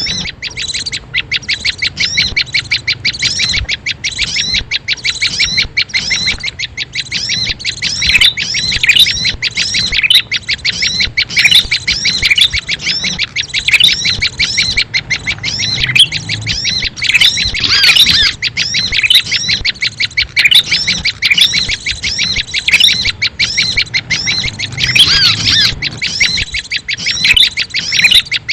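Small birds chirping in a dense, unbroken chatter of quick, high notes, several a second and overlapping. This is a lure call (suara pikat) used to draw small birds in.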